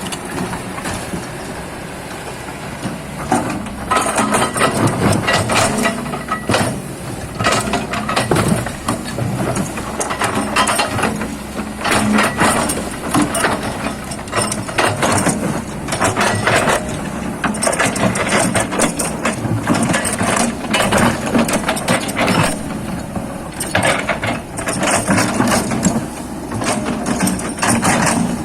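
Excavator's diesel engine running, with dense, irregular metallic clanking and rattling starting about three seconds in.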